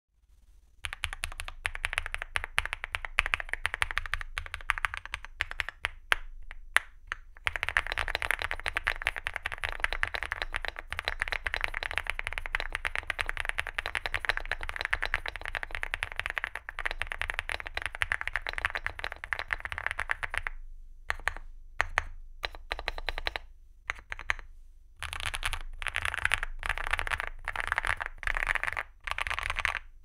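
Typing on a Leobog Hi75 mechanical keyboard with KeyGeek x MZ Y3 linear switches and XDA-profile PBT keycaps, a sound its owner calls creamy and smooth. The keystrokes come fast and continuous for most of the first twenty seconds. Then come a few slower single presses, and near the end quick bursts of typing.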